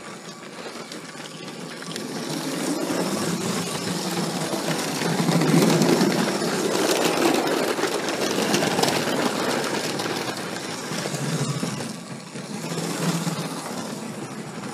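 LEGO 7938 passenger train running on plastic track: the small electric train motor whirring and the plastic wheels clicking and rattling over the rails, getting louder a couple of seconds in.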